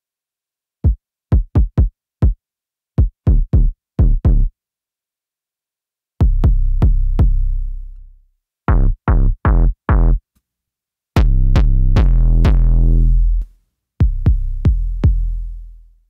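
Omnisphere Unclean Machine "Kick in the Key 1" lo-fi synthesized kick drum played as sets of hits. First come quick runs of short, punchy kicks. Later hits have deep, pitched tails that fade over a second or more, including one note held for about two and a half seconds.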